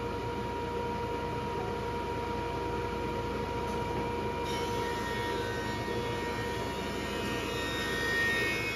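A Grizzly 15-inch thickness planer runs steadily with its dust collection, planing a glued-up hardwood panel, and holds a constant whine throughout. About halfway in the cutting turns brighter and harsher.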